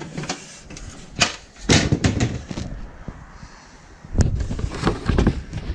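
Cardboard boxes and the things on them being handled and shifted: scattered knocks and bumps with rustling, and a louder cluster of thumps about four seconds in.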